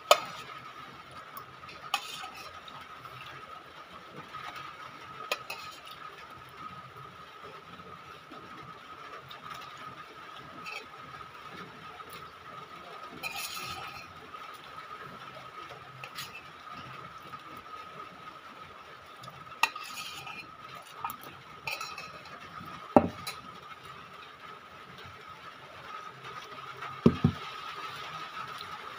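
Metal spoon scraping and clinking against a plate while rice is scooped up and eaten, with a handful of sharp clinks spread through. A steady high-pitched tone hums underneath.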